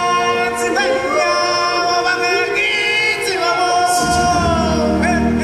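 Stage performers singing over show music in long held notes, choir-like. A deep bass part comes in about four seconds in.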